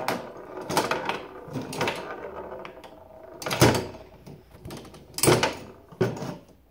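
Tabletop mini foosball game in play: the players on the rods strike the ball and the rods knock against the plastic table, a series of sharp clacks at irregular intervals. The loudest come about three and a half and five seconds in.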